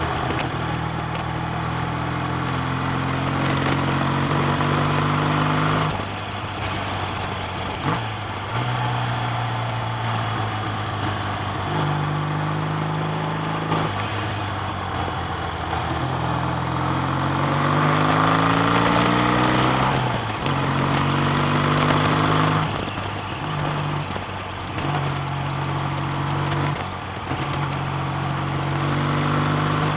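BSA A65 650 cc parallel-twin motorcycle engine running under way. Its pitch rises repeatedly as the bike accelerates, then drops back in steps at the gear changes.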